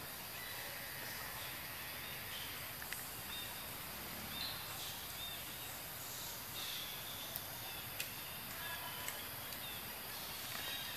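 Forest ambience: a steady hiss with faint, short high chirps dotted through it and a few sharp clicks.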